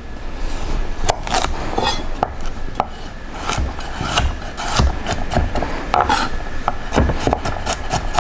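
Rada French chef's knife chopping carrots on a wooden cutting board: repeated sharp knocks of the blade through the carrot onto the board, spaced out at first and coming quicker, about three or four a second, from about halfway as the carrot is diced.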